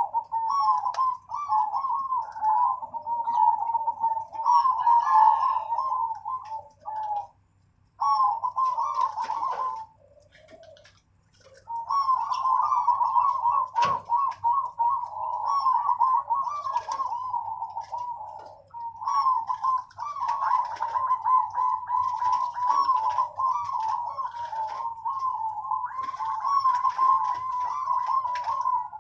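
Zebra doves (perkutut) cooing almost without pause in quick, rippling strings of notes, with short breaks about seven and ten seconds in. A single sharp click comes about fourteen seconds in.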